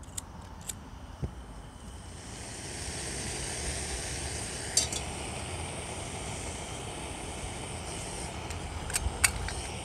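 Hose-fed gas canister camping stove burning with a steady hiss that builds about two seconds in. A few small clicks at the start, and a sharp metallic clink about halfway through as a stainless steel pot of water is set on the burner.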